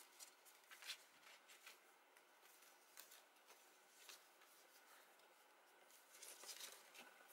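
Faint rustling and light ticks of cardstock being handled and flexed in the hands, with a brief rustle about a second in and a longer one near the end.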